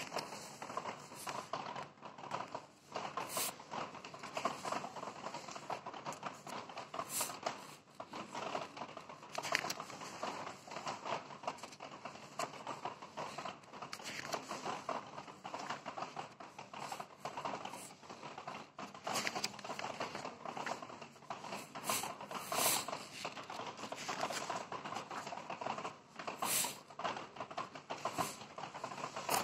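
Glossy pages of a sticker album being handled and turned: a continuous papery rustle with a hand sliding over the paper, broken by sharp flaps as pages are flipped, about nine of them.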